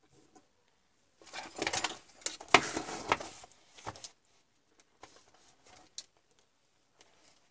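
Handling noise on a workbench: a digital multimeter and its test leads are pushed into place over a paper towel. It is rustling with several sharp knocks, the loudest about a second into the burst, and is followed by a few light clicks.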